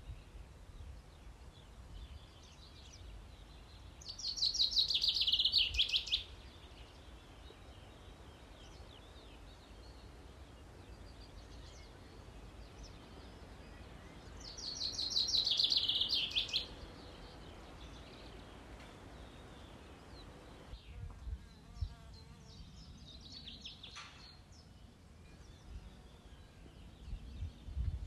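Birdsong: two loud, fast trills of about two seconds each, some ten seconds apart, with fainter chirps between and near the end, over a low steady rumble.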